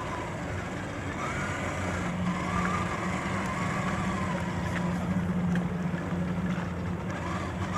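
Redcat Gen 8 RC crawler's electric motor and drivetrain running as the truck splashes through shallow flood water, with a whine that rises and falls with the throttle over a steady low hum.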